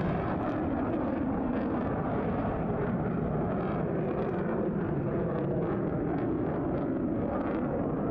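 Fighter jet's engines heard at a distance: a steady rushing noise whose highest tones fall away in the first second, then holds level.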